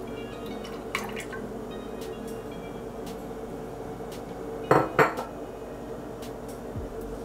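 Milk pouring from a glass bottle into a stainless-steel saucepan, stopping about a second in. Then, about five seconds in, come two sharp clatters of kitchenware close together, the loudest sounds.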